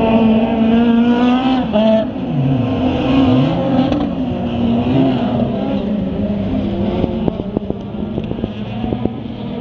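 Autocross race cars racing, several engines held at high revs together. About two seconds in, one engine's note drops steeply and then climbs back.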